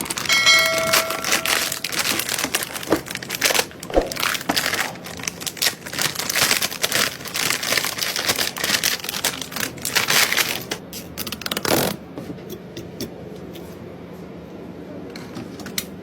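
Close-up handling noise from a PC build: dense rustling, crinkling and clicking of plastic and metal parts, with a short ringing tone near the start. About twelve seconds in, the handling stops and a quieter steady background noise remains, broken by a few light ticks.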